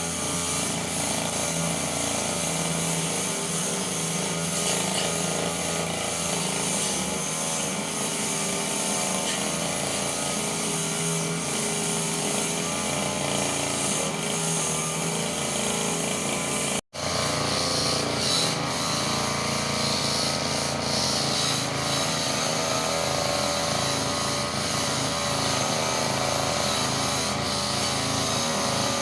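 Petrol brush cutter's small engine running steadily at working speed. The sound drops out completely for a split second about two-thirds of the way through, then carries on.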